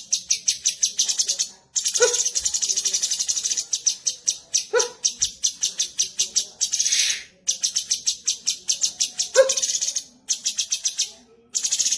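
Cucak cungkok (blue-winged leafbird) singing: long phrases of rapid high notes, about ten a second, broken by brief pauses. Four times a short, lower, sharper call cuts through the song.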